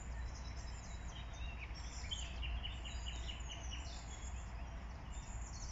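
Small birds chirping and twittering, with a quick run of high chirps through the middle, over a steady low background rumble.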